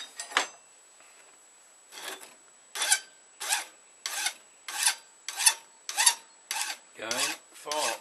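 Hand file rasping across a steel knife blade to round off its tip: one stroke, a short pause, then a steady run of strokes at about one and a half a second. The last few strokes chatter.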